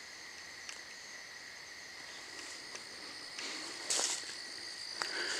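Night chorus of crickets and other insects: a steady high trilling at several pitches at once. A short rustling crunch comes about four seconds in.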